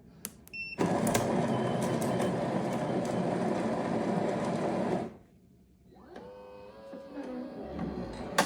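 Zulay Magia super-automatic espresso machine starting an espresso: a short beep, then its built-in grinder grinding coffee beans steadily for about four seconds before stopping abruptly. After a brief pause, a quieter mechanical hum with shifting tones starts as the machine moves on to brewing the shot.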